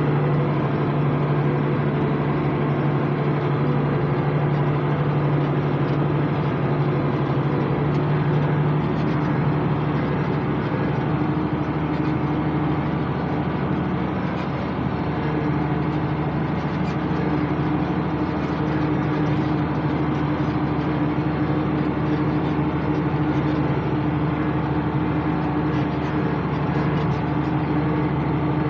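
International 886 tractor engine running steadily at constant speed with an even hum.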